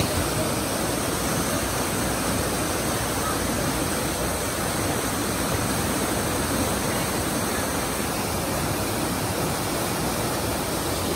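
Whitewater rushing steadily down an artificial concrete rapids channel, an even, unbroken wash of churning water.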